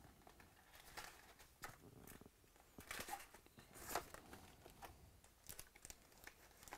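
Faint crinkling and rustling of plastic wrap and a cardboard trading-card box being handled and opened, with scattered sharp crinkles, the loudest about three and four seconds in.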